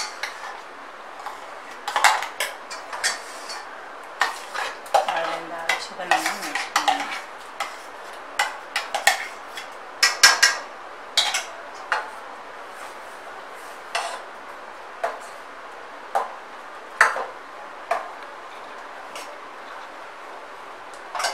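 Steel ladle clinking and scraping against a stainless steel saucepan as boiling milk is stirred. About ten seconds in, blended carrot paste is spooned into the pan. After that the clinks thin out to roughly one a second as the yellow mixture is stirred.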